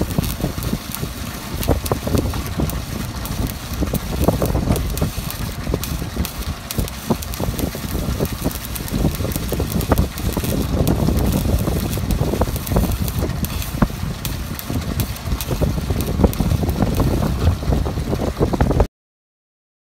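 Wind buffeting the microphone: a heavy, uneven rumble with many faint short crackles over it. It cuts off suddenly near the end.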